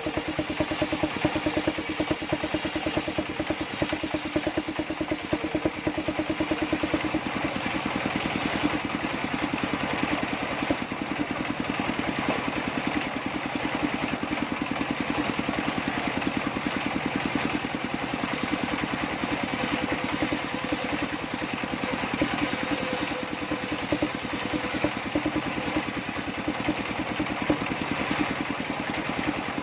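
Engine-driven circular saw table running steadily, the engine's firing pulses carrying through under the blade's noise as it cuts sengon wood.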